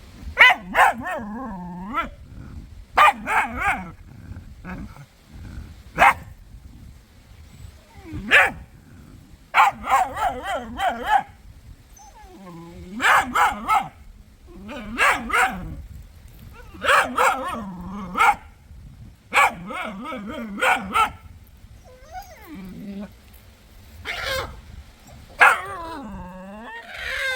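A puppy barking and yipping in short bursts of a few barks, repeating every couple of seconds.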